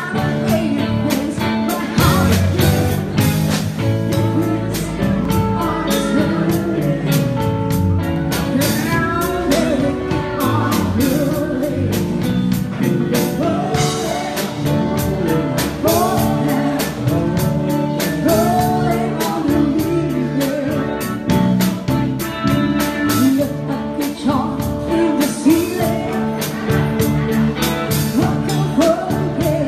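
Live band music: a woman singing into a microphone over electric guitar and a drum kit keeping a steady beat.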